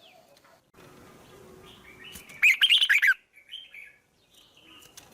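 Songbird chirping: a quick run of short, falling notes about two and a half seconds in, with a few fainter calls around it.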